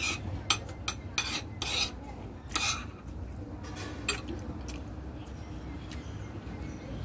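Short clatters and scrapes of a fork and food against a plate, several in the first three seconds and one more at about four seconds, over a low steady hum.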